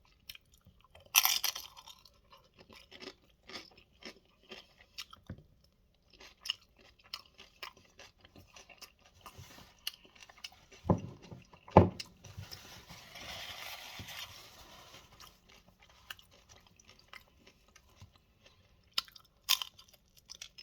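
Close-up chewing of crunchy tortilla-chip nachos, with scattered crunches and mouth noises. Two sharp knocks come a little over halfway, then a few seconds of soft hiss.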